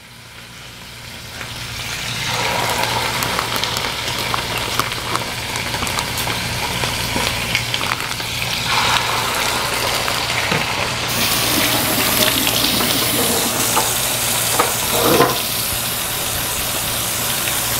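Skin-on chicken thighs sizzling as they fry in hot ghee in a cast iron skillet. The sizzle swells over the first two seconds or so as the pieces go in, then holds steady.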